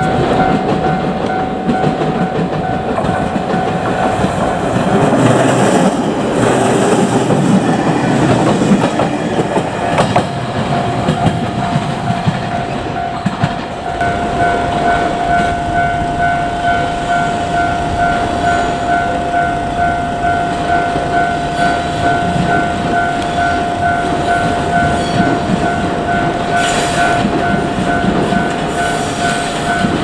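Japanese railway level-crossing alarm ringing continuously as a steady repeated ding. A train rumbles over the rails for several seconds, from about five seconds in, and a JR Kyushu 817 series electric train is drawing near at the end.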